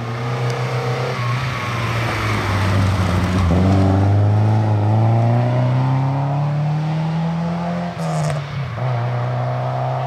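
Classic rally car engine accelerating hard, its pitch climbing steadily through a gear, with upshifts dropping the pitch about three and a half and eight seconds in.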